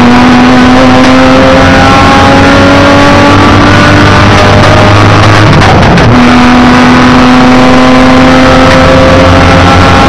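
Race car engine heard loud from inside the cockpit, accelerating hard: the engine note climbs steadily, breaks off about four seconds in, and comes back lower about two seconds later before climbing again, as with an upshift.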